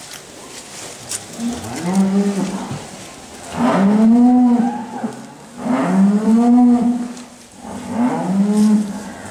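Holstein-Friesian cattle mooing: four long moos one after another, each lasting a second or so.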